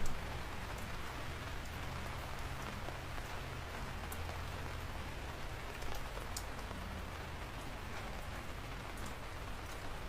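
Steady rain falling on a surface, with a few sharper drop ticks standing out, the first right at the start.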